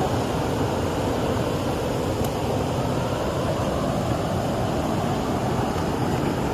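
Steady rushing of floodwater in a stream swollen after heavy rain, an even roar without pauses.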